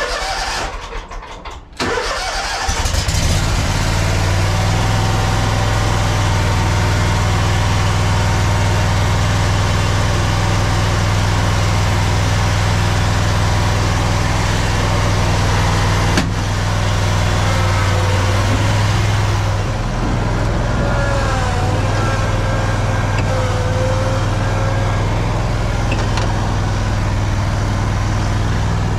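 Lawn mower engine cranking and catching about two seconds in, then running steadily.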